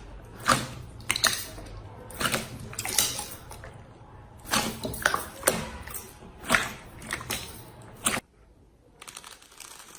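Slime being pressed and poked by hand, giving a run of sharp, irregular clicks and pops. About eight seconds in the sound cuts off abruptly, leaving faint crackling.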